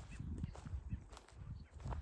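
Footsteps of a person walking, a low thud roughly every half second, with faint bird chirps.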